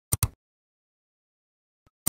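Mouse-click sound effect of a subscribe-button animation: two sharp clicks in quick succession, like a double-click.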